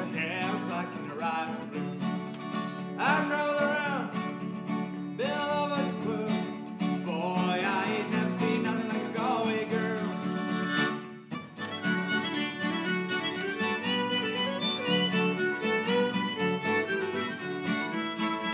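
Acoustic music: strummed guitar with a bending melody line over it. About eleven seconds in the music breaks briefly, then an instrumental passage of harmonica and fiddle over the guitar begins.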